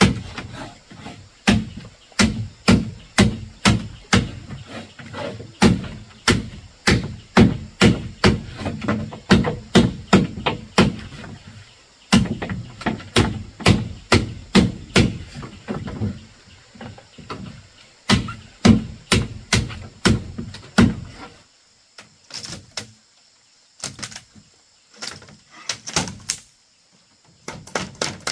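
Repeated chopping blows on wood or bamboo, about two a second, each a solid thunk. A little after two-thirds of the way through they thin out to fewer, lighter and sharper strikes.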